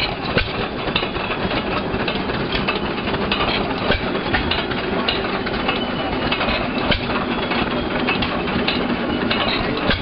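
Hercules 7 HP screen-cooled hit-and-miss gas engine running while it drives a Meadows grist mill: a steady mechanical clatter with many short clacks.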